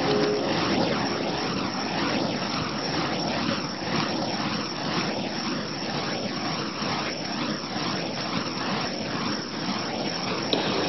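Burning fire poi whooshing as they are swung in circles: a steady rushing roar that swells rhythmically, about twice a second.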